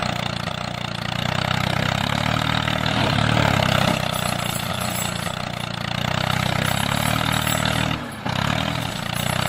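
Motor of a mini model tractor or bulldozer running steadily, its note easing and swelling every second or so, with a brief dip a little after eight seconds.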